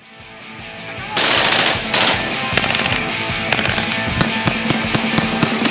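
HK416F assault rifle fire over dramatic music. A rising swell leads into a loud burst of automatic fire about a second in, followed by a string of sharp single shots with music underneath.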